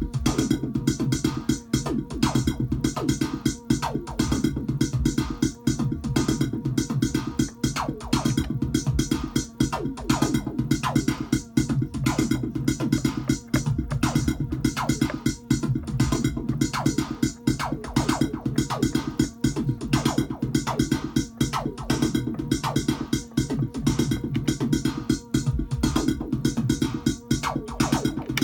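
Elektron Machinedrum drum machine playing a busy electronic beat: fast, evenly repeating percussive hits over a steady bass line.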